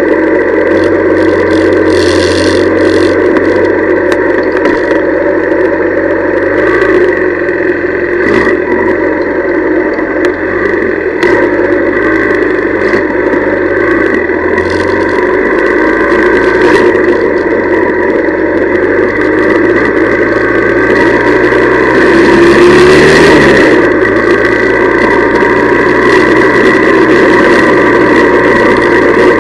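Honda CL175's small parallel-twin engine running under way, its pitch rising and falling with the throttle, and one brief rev-up about three-quarters of the way through.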